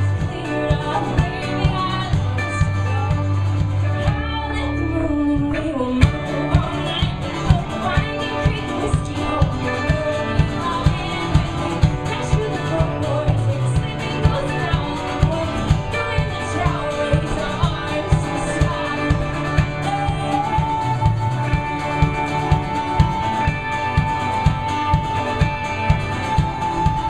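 Live folk-rock band playing with a woman singing lead over acoustic guitar, electric guitar, a small mandolin-like string instrument and cello. A steady beat thumps about twice a second, and a long note is held from about two-thirds of the way through.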